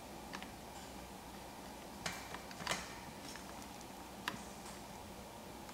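A few scattered light clicks and rubbing of hands handling an e-bike's plastic wiring plugs, over a faint steady room hum.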